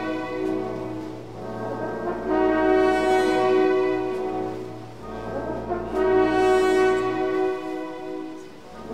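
Background music: slow, sustained chords that swell and fade every three to four seconds.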